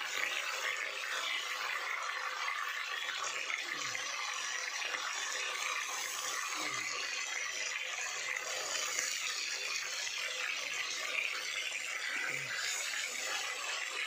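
Stuffed pandol gourd pieces sizzling steadily in hot oil in a kadhai.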